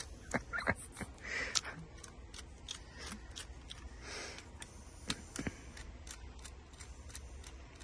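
Small sharp clicks and ticks of a screwdriver undoing the terminal screws of a British General rotary switch held in the hand, with a couple of short rasps.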